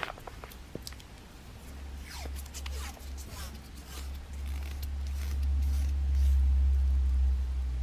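Red plastic tape being pulled off its roll in a few short zipping rips, under a low rumble that builds and is loudest in the second half.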